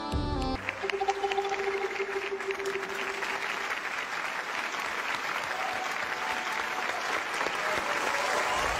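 Studio audience applauding and cheering as the backing music cuts off half a second in. One voice holds a long shout through the first few seconds of the clapping.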